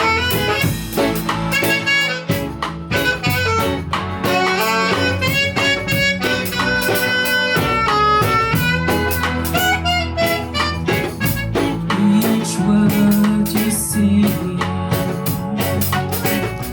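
Live band playing the instrumental opening of a reggae-style song: a steady bass line and drums with regular cymbal strokes under a melodic lead line.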